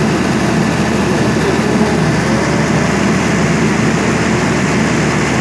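Loud, steady din of a tin dredge's engine-room machinery running, an even low hum and rumble without let-up.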